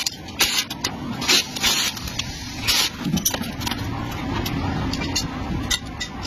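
Irregular short scraping or hissing noises, several a second at first and then sparser, over a steady low hum.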